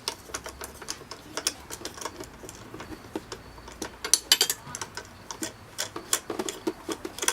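Socket ratchet clicking in irregular short runs as a 10 mm fastener is loosened, with a denser run of clicks about four seconds in.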